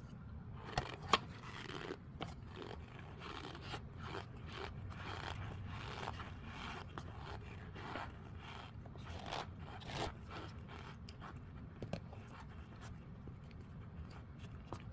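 Marshmallows squished and pulled apart close up: a steady run of irregular soft crackles and sticky scrapes, with two sharper clicks about a second in.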